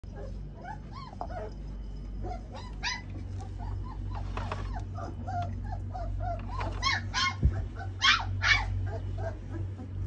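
Australian Shepherd puppies whimpering and yipping: a steady stream of short, high whines with a few louder squeals.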